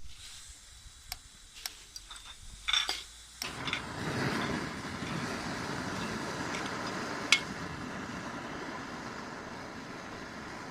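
Gyoza cooking in a frying pan on a camp burner: light clinks of chopsticks and pan at first, then about three and a half seconds in a sudden steady sizzle starts and keeps going, with one sharp click partway through.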